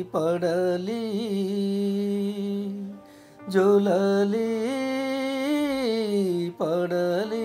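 A man's voice singing a lullaby without words in long held notes that waver and slide, pausing briefly about three seconds in before the next phrase.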